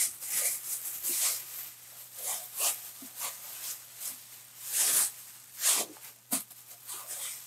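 Thin clear plastic bag crinkling and rustling in irregular bursts as it is pulled and bunched off a speaker stand.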